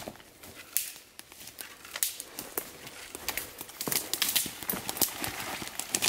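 Footsteps pushing through thick brush, with twigs snapping and dry undergrowth crackling at an irregular pace, getting busier in the second half.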